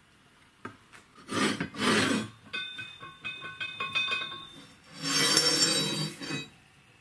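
Flat steel strips handled on a wooden workbench: a knock, then a scrape as metal slides over the bench, a run of light clinks with the steel ringing, and a second scrape with ringing near the end.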